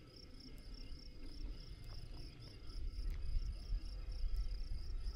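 Meadow insects chirping in an even, high-pitched pulse of about four chirps a second, over a low rumble that grows louder about three seconds in.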